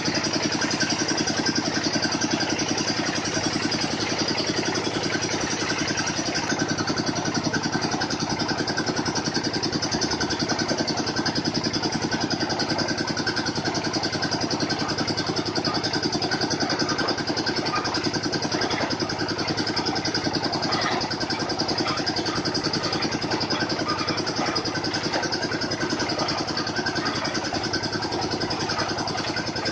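Engine of a water-well drilling machine running steadily at an even speed.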